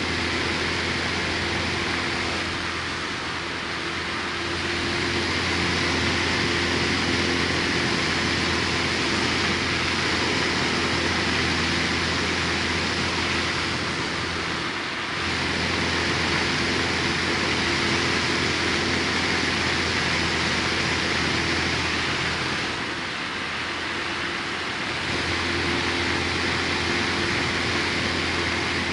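Light aircraft's engine and propeller droning steadily in flight, with wind rush, heard from inside the cockpit. The sound eases off briefly three times.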